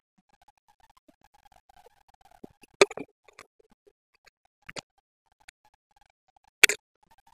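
Handling noise from two small plastic K9 wireless clip-on microphone transmitters being turned in the hands and their spring clips worked: a scatter of sharp clicks and knocks, the loudest about three seconds in and again near the end, over a faint wavering whine.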